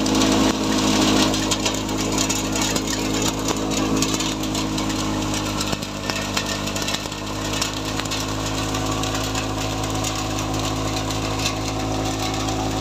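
Tractor-powered thresher running under load: a steady machine drone from the engine, drum and blower, with a constant crackling rush of straw being threshed and blown out through the chute.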